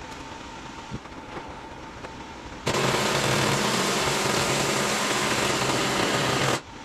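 Air compressor running: a loud, even hiss with a low hum underneath starts suddenly about two and a half seconds in and cuts off abruptly about four seconds later, after quieter shop noise.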